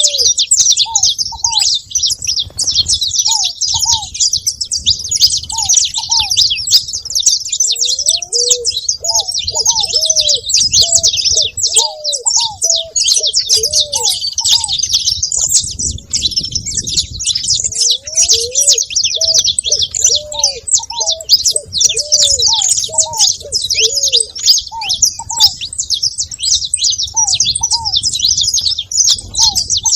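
Many saffron finches chirping and twittering without pause, with ground doves cooing underneath in repeated series of short, low, arching notes.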